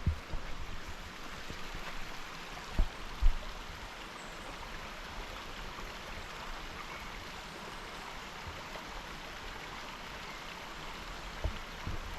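Steady rushing of a flowing stream, with two dull low thumps about three seconds in.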